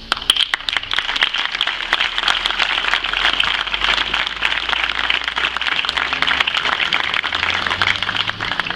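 Crowd applauding, starting all at once and thinning out near the end.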